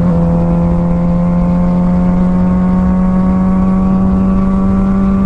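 2006 Suzuki GSX-R600's inline-four engine running under load in gear at road speed, its pitch climbing slowly and evenly as the bike gains speed.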